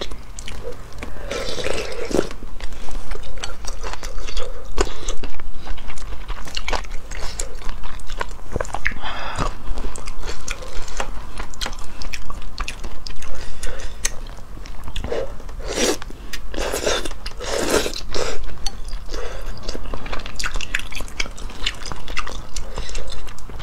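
Close-miked eating of luosifen rice noodles: slurping noodles, chewing and biting, with a cluster of louder slurps about two-thirds of the way through.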